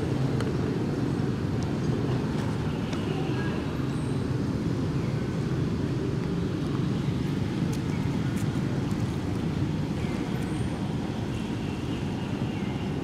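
Steady low outdoor background rumble, with a few faint short high chirps now and then.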